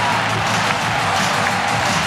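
Large football stadium crowd cheering, with music playing over the stadium's public address; a steady, loud wall of sound.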